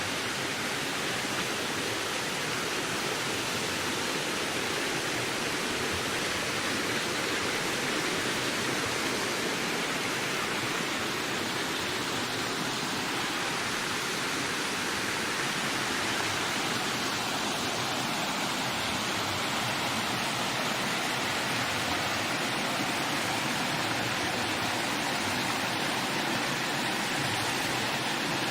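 Wind blowing steadily through a forest: an even rushing hiss with no distinct gusts, breaks or other events.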